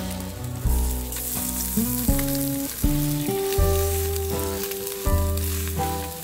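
Food frying in a hot pan, a steady sizzling hiss, over background music with held notes and a bass line.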